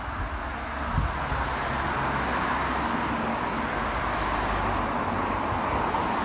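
A car driving past on the road, its tyre and engine noise growing louder over the first couple of seconds and then holding steady.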